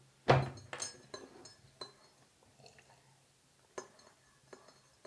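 A few short clicks and light knocks: one louder knock just after the start, then single quieter clicks scattered through the rest.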